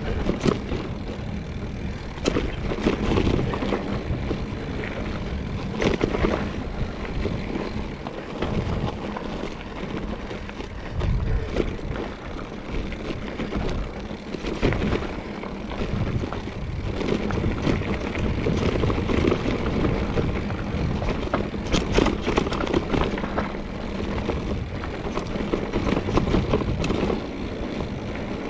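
Trek Fuel EX 5 full-suspension mountain bike ridden along a dirt trail: tyres rolling over dirt and rock under a steady low rumble, with the bike rattling and knocking irregularly over bumps.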